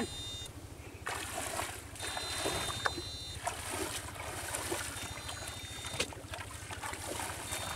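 Water sloshing and splashing as men wade through shallow water. A thin high-pitched whine from the backpack electric fish shocker's unit comes and goes several times.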